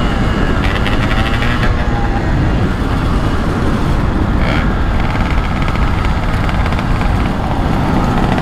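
Yamaha RX King's two-stroke single running at road speed, its engine mixed with heavy wind noise on the microphone.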